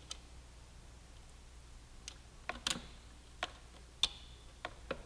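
Scattered light metallic clicks and ticks, about eight in all, from small brake-line parts being handled and fitted by hand into a motorcycle's rear brake caliper: a banjo fitting with its crush washers being set in place finger tight.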